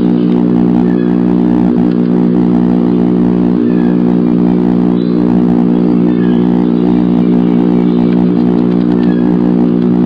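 A loud, steady hum made of many even tones, unchanging throughout, with faint short chirps every second or two.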